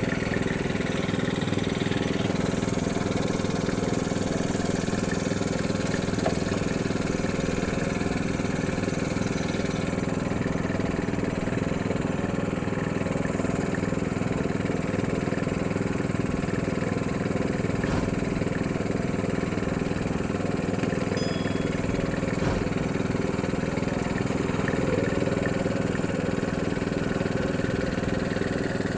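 Small petrol engine running steadily at an even speed, with no change in pitch.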